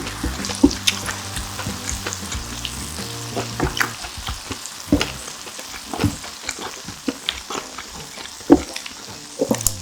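Close-miked chewing of grilled pork intestine (makchang), with irregular clicks and smacks.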